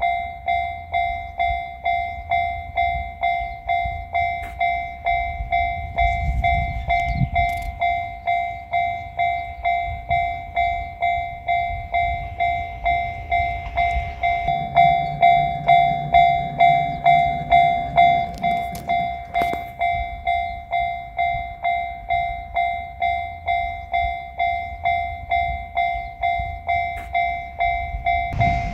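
Japanese level-crossing warning bell ringing its repeated electronic 'kan-kan' at about two strokes a second, signalling that a train is approaching. A low engine hum joins for a few seconds around the middle.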